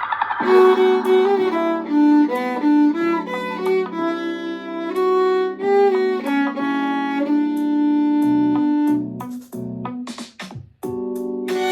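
Violin playing the song's melody over a pop backing track. Notes come in quick succession, with one longer held note partway through. The music drops out briefly near the end, then comes back in.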